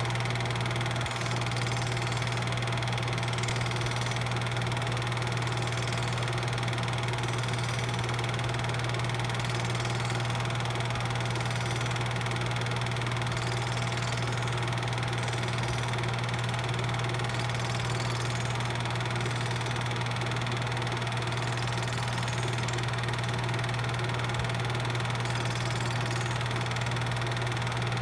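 An 8mm film projector running: a steady, unchanging motor hum with constant hiss and no other events.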